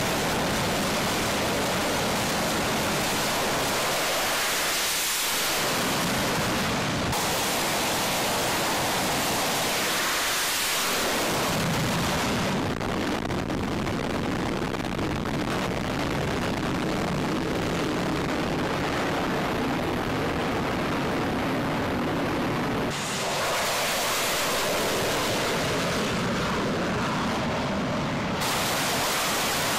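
Jet fighter engines at high power on a carrier flight deck: a steady, full-range rushing noise with no distinct tones, shifting in tone abruptly several times.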